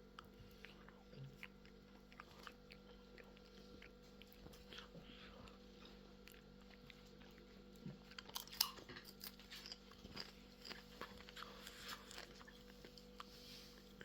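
Someone chewing popcorn: quiet, irregular crunches, with a louder run of crunches about eight to nine seconds in.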